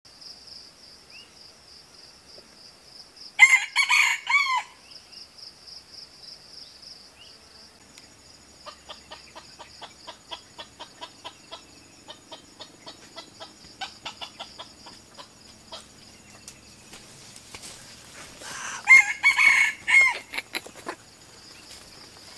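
Red junglefowl roosters crowing twice, each a short crow of about a second, one about four seconds in and one near the end, over a steady high-pitched buzz. A run of quick clucks, about three a second, comes in between.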